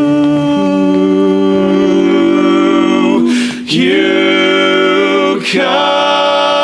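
Barbershop quartet of four male voices singing a cappella in close harmony: held chords that move from one to the next, broken twice by a brief sung hiss, about three and about five and a half seconds in.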